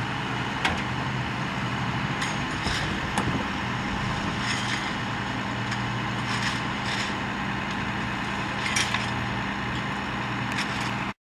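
A heavy engine idling steadily, with a scattering of sharp clicks and knocks over it; the sound cuts off abruptly near the end.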